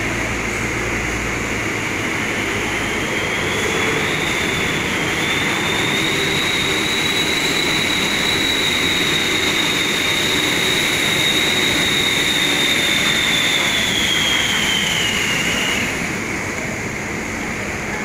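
Steady machinery and diesel vehicle engine noise inside a ferry's enclosed vehicle deck, as trucks and a minibus drive along the deck and up the ramp. A high whine rises in a few seconds in, holds, and fades away near the end.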